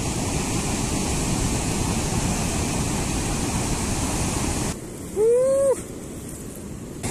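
Ocean surf breaking on a sandy beach, a steady rushing noise that cuts off abruptly about five seconds in. A quieter background follows, with one short pitched call that rises then falls in pitch; this call is the loudest sound.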